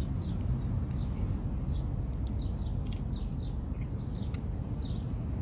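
Small birds chirping: a scattered run of short, high, falling chirps over a steady low rumble of wind on the microphone.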